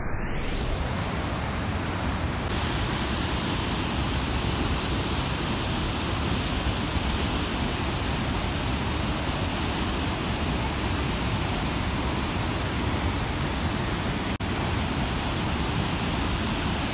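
Steady, close-up rush of a large waterfall, heavy white water pouring down into a narrow rock gorge.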